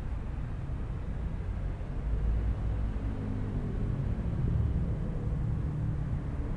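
Low rumble of road traffic, motor vehicles passing, swelling about two seconds in and again about four and a half seconds in.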